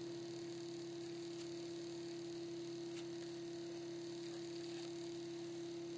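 Steady electrical hum on one even pitch, with a faint click about halfway through.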